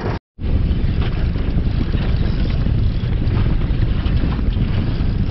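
Wind buffeting the microphone on a small boat under way, with a steady rush of water past the hull. The sound drops out for a split second just after the start.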